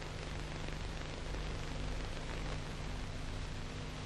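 Steady hiss with a low, even hum underneath: the background noise of an old film soundtrack.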